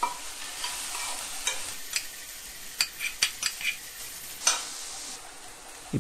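Shredded cabbage, carrot, beans and capsicum sizzling in hot oil in a pan while being stirred with a slotted spatula. The spatula scrapes and taps against the pan a dozen or so times.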